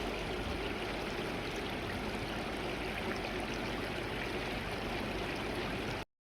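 Mountain valley stream flowing over rocks: a steady rushing and babbling of water that cuts off suddenly near the end.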